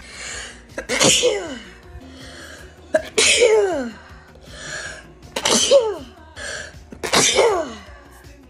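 A woman sneezing four times in a rapid fit, about two seconds apart. Each sneeze starts with a breathy inhale and ends in a loud burst whose pitch falls away.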